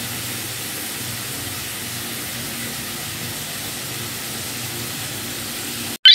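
Steady background hiss with a faint low hum. It cuts off abruptly near the end.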